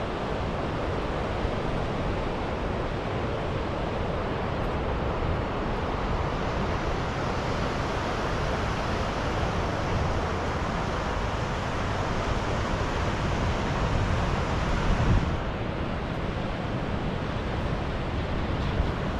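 Sea surf breaking and washing up the beach, with wind rumbling on the microphone. The hiss of the wash builds about six seconds in and drops away sharply about fifteen seconds in.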